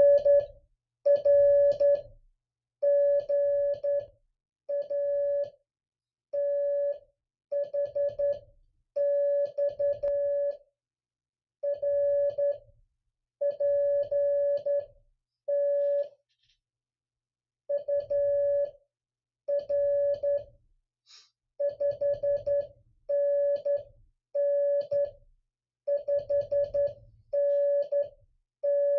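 Morse code (CW) keyed by hand: a steady tone of about 600 Hz switched into dots and dashes, grouped into characters and words with short pauses between, sending one side of an amateur-radio exchange.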